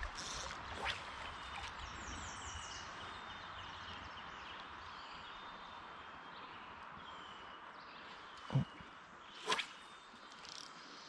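Birds singing and calling with many short, repeated high notes over the steady rush of a stream. A dull knock comes near the end, followed a second later by a sharp click.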